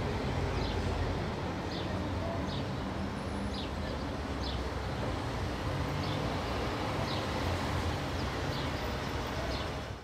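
Indian city traffic ambience: a steady rumble of cars, motorbikes and auto-rickshaws, with short high-pitched chirps about every second. The whole recording fades out right at the end.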